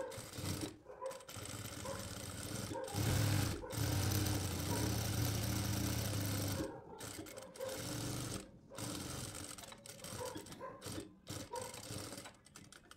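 Industrial sewing machine stitching along the edge of a fabric strip. It runs in short stretches, stopping and restarting several times. The longest and loudest run is from about three to seven seconds in.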